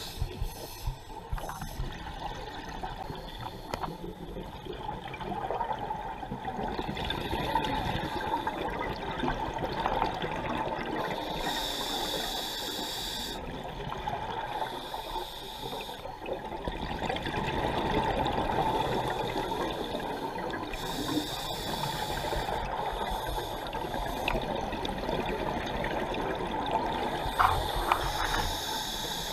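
A scuba diver's breathing, recorded underwater: exhaled bubbles from the regulator rumble and gurgle, broken three times by a hiss of about two seconds as the diver breathes in through the regulator. A couple of sharp knocks shortly before the end.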